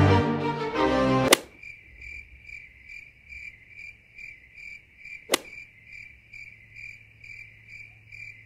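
Music stops with a sharp click about a second in, and a steady cricket-chirping sound effect follows: evenly spaced high chirps, about two and a half a second, with another sharp click midway.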